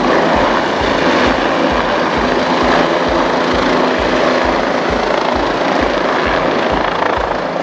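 Helicopter lifting off: the rotor beats in a steady rhythm of about three thumps a second over a loud, even rushing noise.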